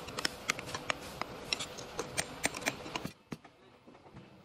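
Metal parts of a cycloid reducer being handled: a quick, irregular run of sharp metal clicks and light taps, some with a brief ring, that stops suddenly about three seconds in.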